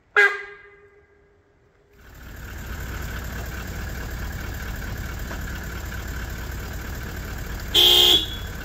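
Sambar deer giving loud, horn-like alarm honks: a sharp one right at the start that rings away over about a second, and a shorter, louder one near the end. A steady rushing noise fills the gap between them.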